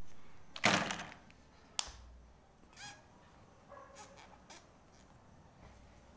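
Plastic marker pens clattering and clicking as they are handled and laid out on paper: a loud rustling burst about half a second in, then a few sharp clicks.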